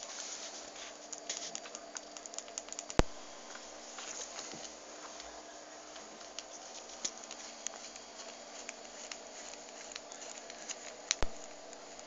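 Small clicks and scratching as a pen-style battery's threaded metal end is handled and worked against its threaded connector, with two sharp clicks, one about three seconds in and one near the end.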